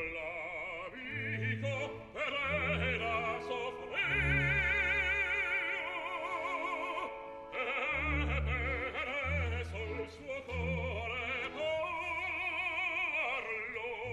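A male opera singer singing with wide vibrato and long held notes over orchestral accompaniment with deep sustained low notes.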